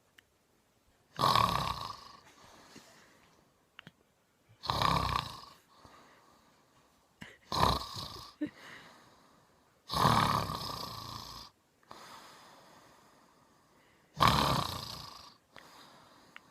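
A man snoring: five loud snores about three seconds apart, each starting sharply and trailing off, with quiet breathing in between.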